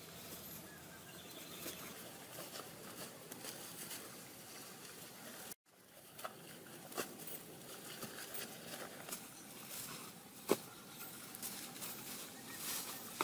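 Soft rustling and handling noises of grass turf and a woven basket, with light scattered ticks over quiet outdoor ambience. The sound drops out for a moment about halfway, and a single sharp click stands out near the end.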